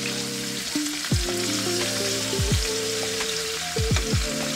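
Seasoned chuck roast chunks sizzling as they sear and brown in vegetable oil in a skillet. Background music runs underneath, with steady low notes and several deep falling bass sweeps.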